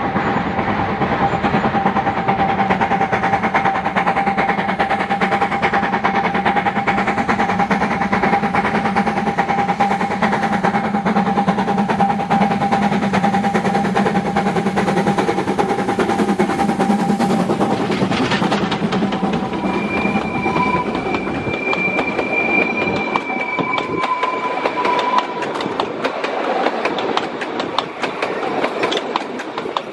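Narrow-gauge steam train (locomotive 609.76 with coaches) approaching and passing close by: a steady running noise with a held tone, then from about two-thirds of the way through, wheels clacking over the rail joints with brief squeals as the coaches go past on the curve.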